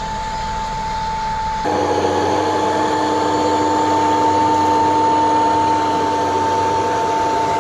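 Steady mechanical hum and whine of a large tractor pulling a multi-row planter, heard from inside a vehicle cab. The sound steps up abruptly louder with more whining tones about two seconds in.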